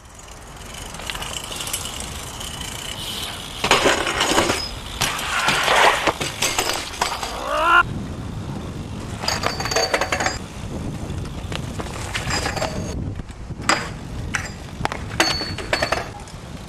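BMX bikes ridden on concrete: steady rolling noise broken by repeated sharp metallic clanks and knocks as bikes land and hit the ground. Near the end a bike crashes down beside its fallen rider.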